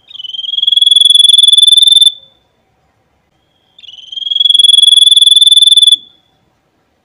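White-breasted babbler (Stachyris grammiceps) giving two long, rapid trills at a high, steady pitch, each about two seconds long, swelling in loudness and then cutting off. This is its harsh 'nembak' (rapid-fire) song.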